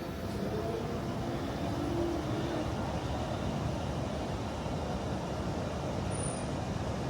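A train running into the station, a steady rumble with a faint whine in the first few seconds.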